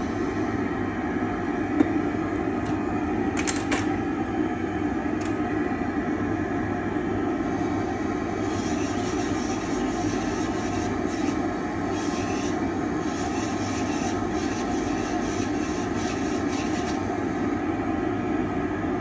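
Steady hum of a dental lab dust-extraction box running, with a handpiece bur trimming a milled full-arch zirconia bridge. The grinding comes in short, hissy passes from about eight seconds in until about seventeen.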